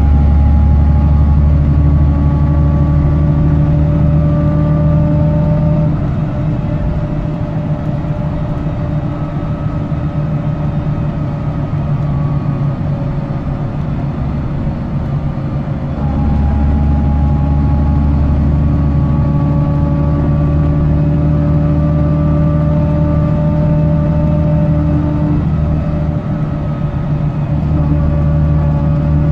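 BMC Condor bus's diesel engine heard from inside the saloon, pulling with a loud, deep drone that rises slowly in pitch. It eases off about six seconds in, pulls hard again from about sixteen seconds, and lets off briefly near the end. The loud note is the sign of a blown exhaust.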